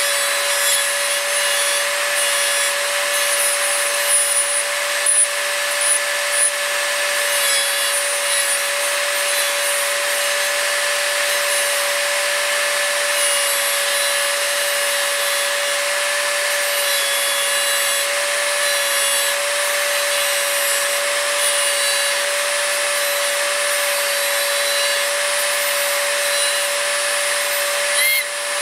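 Dremel rotary tool running with a steady whine, its abrasive cut-off wheel grinding a steel scratch stock cutter blade to shape. The wheel briefly comes off the steel near the end.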